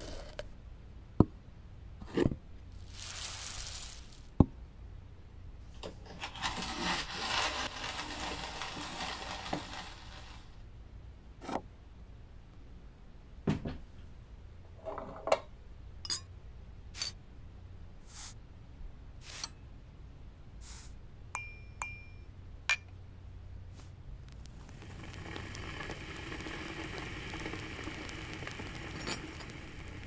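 A sequence of small tabletop sounds: a lid knocked and scraped on a jar, stretches of grainy hiss, then a metal spoon ticking and clinking against a ceramic cup, some strikes ringing on with a clear high note.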